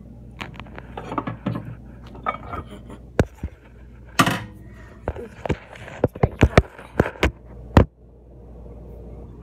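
Short clicks and knocks of things being handled around a microwave oven, most of them in a quick run during the second half. There is also a brief rustle just after the middle, over a steady low hum.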